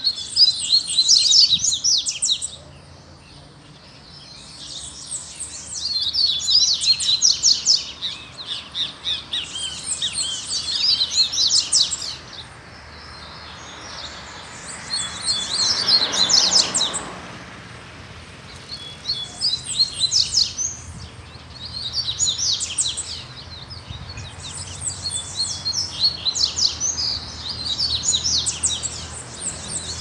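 Double-collared seedeaters (coleiros) countersinging: a caged male and a wild bird trading fast, high song phrases, each two to three seconds long, one after another with short pauses between.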